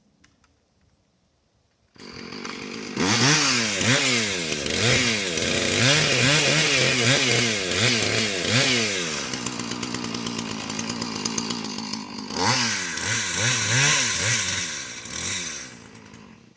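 Two-stroke Husqvarna chainsaw running loud, revving up and down repeatedly, with a steadier, lower-pitched stretch midway. It starts about two seconds in and stops shortly before the end.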